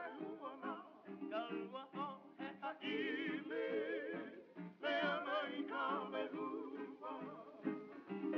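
Music: a singing voice in strong, wavering vibrato over a steady instrumental accompaniment.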